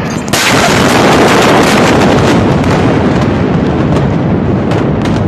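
The main Beirut port explosion at close range: a sudden, very loud blast about a third of a second in, then a long rushing roar of the blast wave that slowly dies down, with a few sharp cracks near the end.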